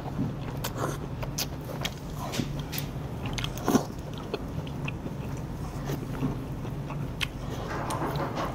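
Close-miked eating sounds of udon noodles being chewed and slurped, with scattered small clicks and one louder sound a little before halfway.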